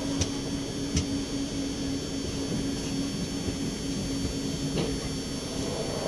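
Indian Railways ICF passenger coach running, heard from its open doorway: a steady rumble of wheels and rushing air with a low hum, and a few sharp clicks from the running gear, about a second in and near the end.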